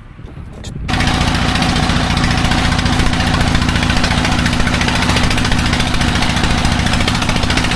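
Boat engine running steadily at an even speed, starting suddenly about a second in.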